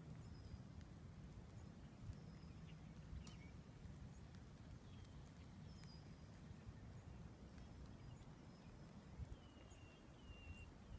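Near silence: a faint low wind rumble, with distant birds giving short, slightly falling whistled chirps about once a second.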